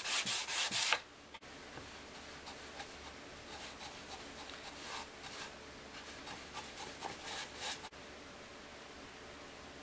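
Hand sanding a mahogany box with a sanding block and 100-grit paper: quick back-and-forth strokes, about four or five a second, that stop abruptly about a second in. After that comes a much fainter brushing, a paintbrush stroking stain onto the wood.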